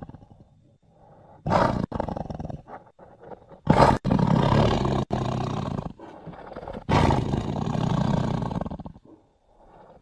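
Sound-designed Smilodon (sabre-toothed cat) roars: a short roar, then two long deep roars with quieter growls between, the middle one broken by abrupt cuts from editing.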